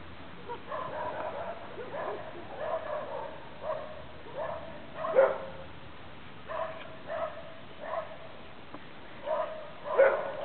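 Thai Ridgeback puppies yipping and barking in play while they wrestle, short high calls about one to two a second, with two louder yelps, one about five seconds in and one near the end.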